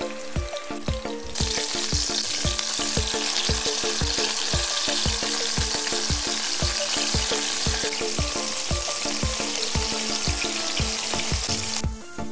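Meat-and-potato patties sizzling in hot oil in a frying pan. The sizzle starts about a second in and cuts off sharply near the end, over background music with a steady beat.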